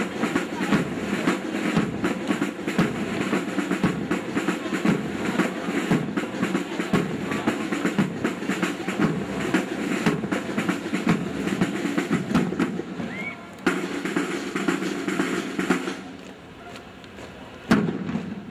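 Boots of a large formation of troops marching in step on pavement: a dense, rhythmic stamping that drops off in the last couple of seconds, with one loud stamp near the end.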